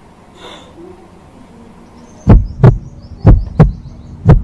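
Heartbeat sound effect starting about two seconds in: loud double thumps, lub-dub, about one pair a second.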